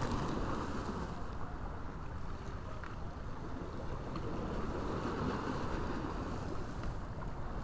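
Steady wind buffeting the microphone, with sea waves washing against the rocks of a stone breakwater.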